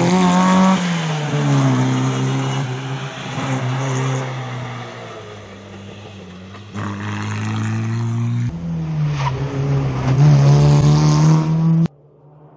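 Small rear-engined Fiat 600-type rally car's engine revving hard, dropping in pitch at an upshift about a second in and fading as the car pulls away. Later the engine is loud and revving high again, and the sound stops abruptly near the end.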